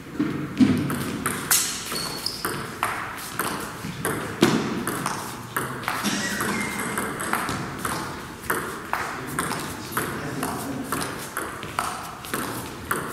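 Table tennis rally: the ball clicks in a steady back-and-forth against the bats and the table, about two hits a second.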